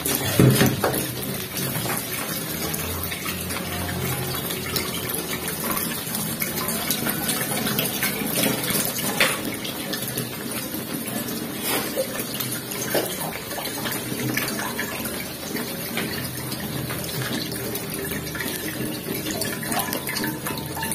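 Blended garlic, ginger, candlenut and pepper paste frying in oil in a wok: a steady sizzle with scattered small pops, as it is fried down until dry.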